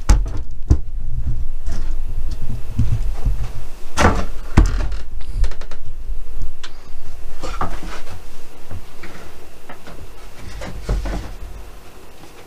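Wooden boards and offcuts being handled and set down on a workbench: several hard knocks and clatters, the loudest about four seconds in, over a low rumble of handling noise, growing quieter near the end.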